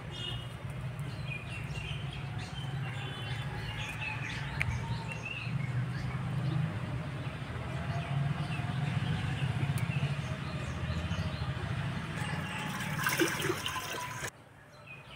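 Birds chirping over a steady low hum, then, near the end, water poured by hand into a clay pot, splashing briefly before cutting off suddenly.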